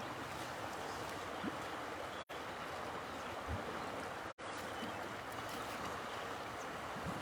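Steady rushing of flowing water, like a stream or river, broken twice by a brief total dropout.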